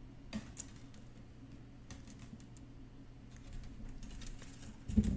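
Light, irregular clicks and ticks of thin half-round wire being fed by hand through the weave of a wire-wrapped ring. There is one louder, dull thump near the end.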